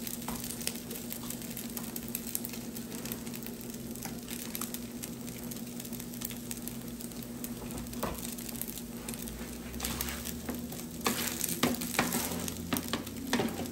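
Fried rice sizzling steadily on a Blackstone 22-inch E-Series electric griddle, over a steady low hum. Spatula scrapes and clicks on the flat-top plate come thicker and louder in the last few seconds.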